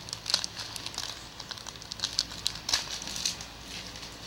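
Irregular crinkling and rustling from hands handling a small squishy toy, in scattered short crackles.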